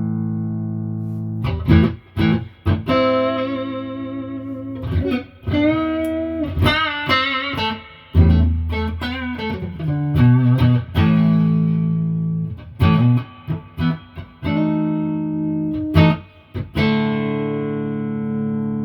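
Electric guitar played through a valve amp with its spring reverb on: long ringing chords, a run of single notes with vibrato in the middle, then short choppy stabs before a final chord rings out.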